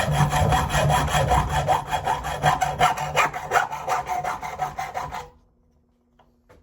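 A tool cutting or scraping at scrap metal fittings with rapid rasping strokes and a low steady hum underneath, stopping abruptly a little over five seconds in.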